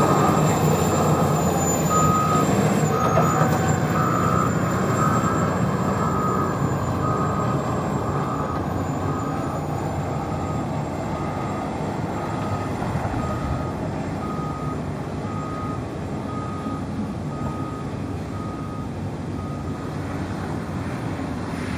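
Heavy diesel earthmoving machinery running steadily, with a backup alarm beeping about once a second that stops near the end.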